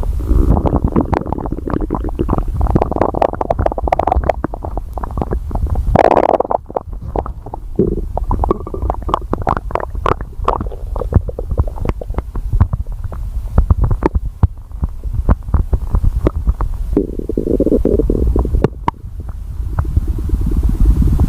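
Stomach growling: a continuous low rumble with gurgling, broken by many small crackling clicks, with louder bursts of bubbling gurgle about six seconds in and again near eighteen seconds.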